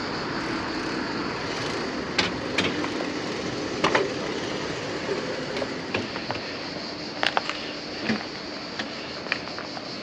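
Bicycle riding along a road: a steady rush of wind and tyre noise, with scattered sharp clicks and knocks from the bike.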